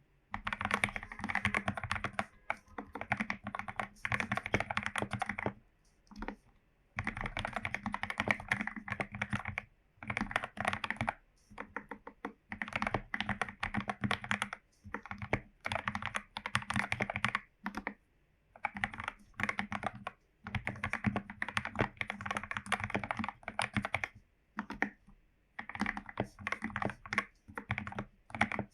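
Typing on a Royal Kludge RK84 mechanical keyboard with lubed Gateron Yellow linear switches, foam- and tape-modded: fast runs of key presses several seconds long, broken by short pauses.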